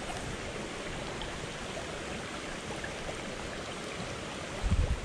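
Shallow rocky brook rushing steadily over stones in a riffle. Near the end there is a brief low thump.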